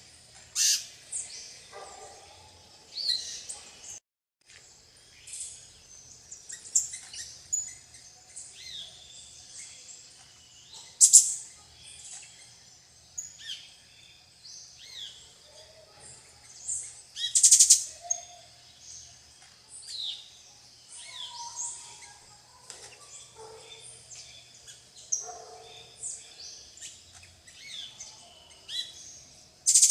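Mixed bird calls with many short high chirps throughout, among them the shrill screeches of plain parakeets (Brotogeris tirica). The loudest screeches come near the start and about eleven and seventeen seconds in.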